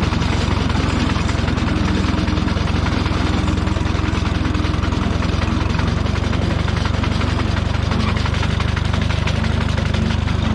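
Minneapolis-Moline tractor engine running steadily at low RPM while driving a sickle bar mower through pasture grass, with a deep, rapid, even beat.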